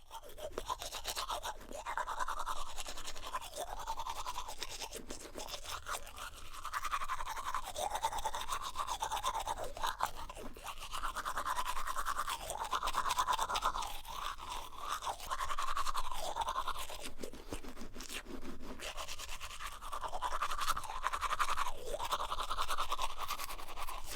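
A person brushing their teeth with a manual toothbrush: continuous wet scrubbing strokes against the teeth, the tone shifting every second or two as the mouth changes shape.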